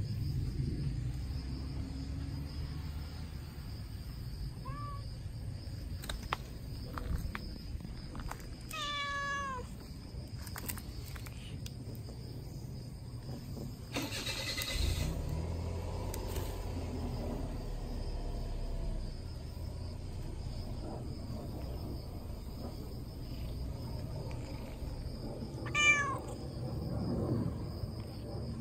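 A black-and-white stray cat meowing a few times: soft short meows early, a clear meow about nine seconds in and the loudest one near the end, over a low steady rumble.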